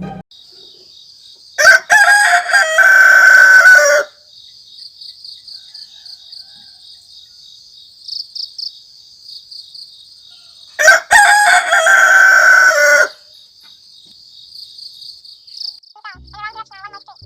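A rooster crowing twice, each crow lasting about two seconds, over a steady high chirping of insects.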